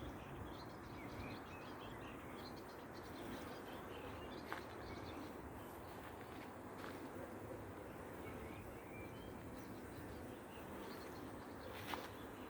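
Honeybees buzzing faintly around a swarm trap, with small birds chirping in the background and a few soft clicks.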